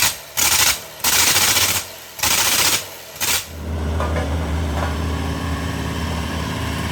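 Several loud bursts of hissing noise, each under a second long, then from about three and a half seconds in a diesel engine running steadily.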